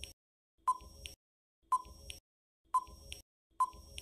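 Countdown timer sound effect: four short, quiet beeping ticks, about one a second.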